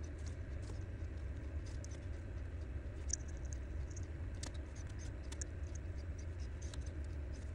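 Faint scattered clicks and scratches of hands and electrical pliers working the thin wire leads of a 12 V dimmer switch while stripping them and fitting crimp connectors, over a low steady hum.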